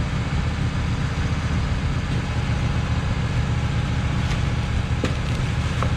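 Wood-Mizer LT15 band sawmill running steadily while it takes a 1.5-inch slab cut off a pine log to make a flat side, with a few faint ticks in the second half.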